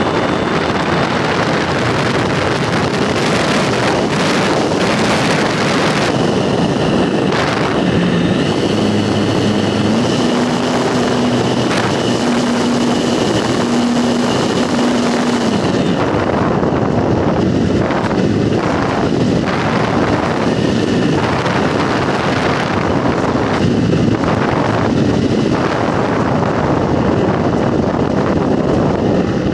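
Model airplane in flight, recorded on board: its motor and propeller run steadily under heavy wind rushing over the microphone. The high hiss thins out about halfway through.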